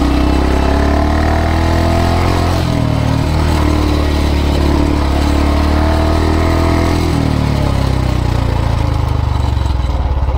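Royal Enfield Classic 350's single-cylinder engine pulling the bike up a loose, sandy dirt slope. The engine note changes step twice, about two and a half and seven seconds in, as the rear tyre, short of grip, slips on the sand.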